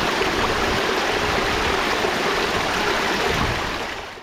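Steady rush of a creek and small waterfall pouring over rocks, fading away near the end.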